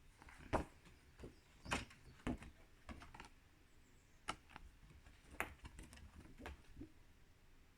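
Faint, irregular clicks and taps of a handheld card being turned over and handled.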